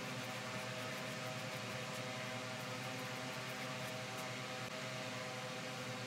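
Steady hiss with a faint low hum underneath, unchanging throughout, with no distinct knocks or strokes standing out.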